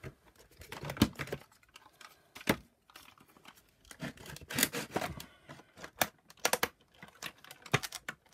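Plastic parts of a vacuum-cleaner power nozzle being handled and fitted together: irregular clicks, knocks and scraping of the housing, with rustling from gloved hands.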